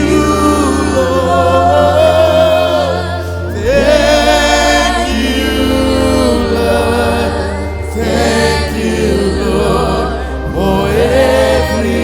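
Gospel worship song: voices singing "thank you, Lord" in long held lines over a keyboard-and-bass backing track.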